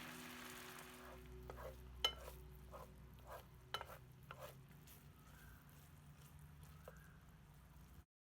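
Food sizzling faintly in a frying pan while being stirred, with a utensil clicking against the pan a few times; the sharpest click comes about two seconds in. It cuts off abruptly near the end.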